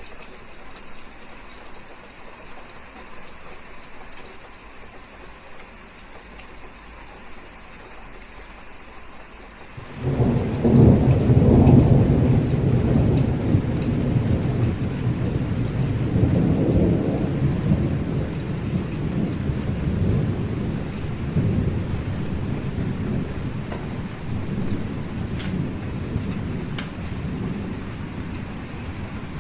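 Steady rainfall, then about ten seconds in a long, deep roll of thunder comes in suddenly, loudest in its first couple of seconds and slowly dying away under the rain.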